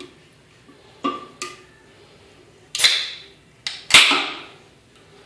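A Rockstar Pure Zero aluminium energy-drink can: two light clicks, then the ring-pull cracked open in two goes, each a sharp pop followed by a short fizzing hiss of escaping gas. The second is the louder.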